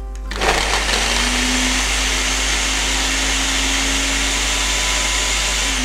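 Electric mini food chopper grinding garlic and ginger. It switches on shortly after the start, runs steadily and loudly, and switches off near the end, winding down.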